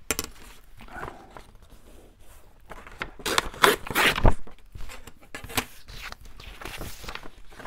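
Paper being handled and folded: rustling and crinkling, loudest in a run of crackles about three to four seconds in.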